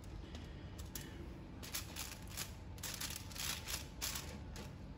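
Faint, scattered soft clicks and rustles, busiest in the second half, from hands picking diced bacon off a plastic cutting board and pressing it into mushroom caps set on crinkly aluminium foil.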